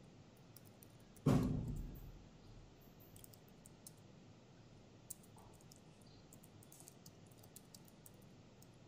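Faint computer keyboard typing and mouse clicks, with one louder thump about a second in.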